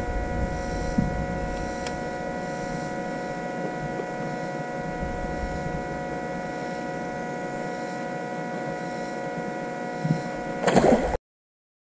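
Electric trolling motor running with a steady hum of several pitched tones. A short burst of noise comes near the end, and then the sound cuts off abruptly.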